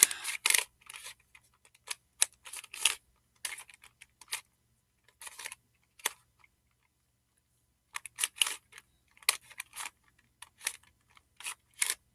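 Plastic barrel cube, a 3x3 twisty puzzle, being turned by hand: runs of quick clicking and clacking turns, with a pause of about a second and a half past the middle.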